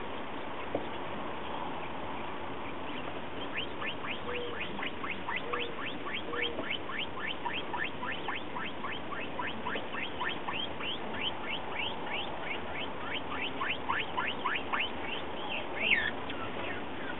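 Button quail calling: a long fast series of short, high-pitched downward-sliding notes, about four a second, ending in one louder note. Three soft low notes sound about five seconds in.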